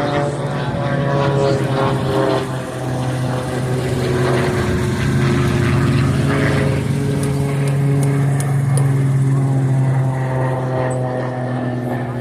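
Propeller airplane engine running steadily in flight, its pitch shifting slowly, louder through the middle.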